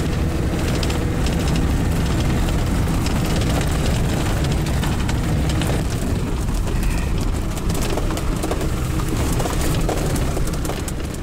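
Cab noise of an off-road vehicle driving slowly on a gravel track: steady engine rumble with the rattle of tyres over gravel.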